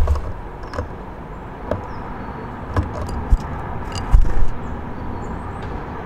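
Outdoor ambience: a steady low rumble with a few short knocks and clicks scattered through, the loudest about four seconds in, and faint high bird chirps near the end.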